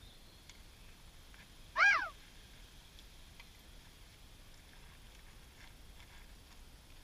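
A single short mewing animal call, rising and then falling in pitch, about two seconds in, loud against a faint steady background.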